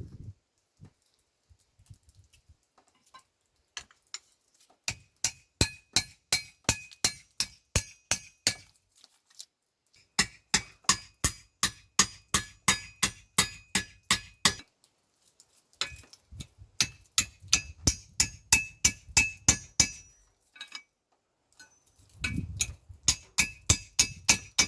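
Hand hammer cold-forging a flat steel bar on an anvil: runs of sharp, ringing metal strikes, about four a second, broken by short pauses.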